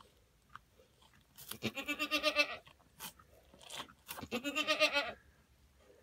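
A goat bleating twice, two quavering calls of about a second each, with a few short clicks between them.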